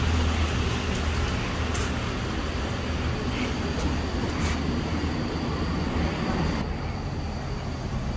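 Street traffic noise from cars moving and idling along a town street, a steady low rumble.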